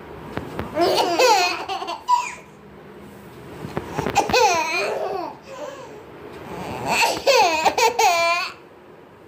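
Small children laughing and babbling in three high-pitched bursts a few seconds apart.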